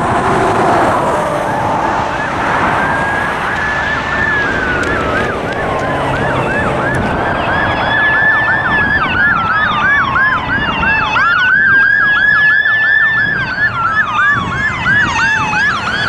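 Emergency vehicle siren: a slow wail rising and falling over a few seconds, overlaid with a fast yelp of about three sweeps a second.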